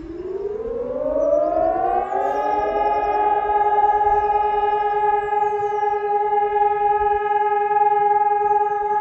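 Several Helin electronic civil-defence sirens (HES 1200 and HES 600) start up together. Their layered tones rise in pitch over about two and a half seconds, then hold as one steady, loud chord. This is the opening of the one-minute steady all-clear tone (Entwarnung) of the siren test.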